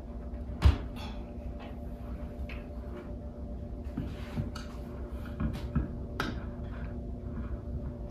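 Scattered knocks and clicks of household objects being handled, the loudest about a second in and another near six seconds, over a steady faint hum.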